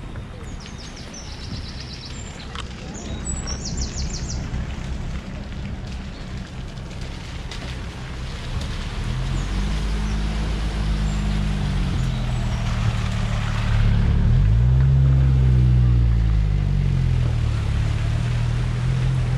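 Birds chirp over a steady rush of water at a ford. About halfway through, a classic open-top sports car's engine comes in and drives through the ford, its tyres splashing through the water. The revs rise and fall, and the engine is loudest a little past two-thirds of the way, then keeps running as the car pulls out onto the road.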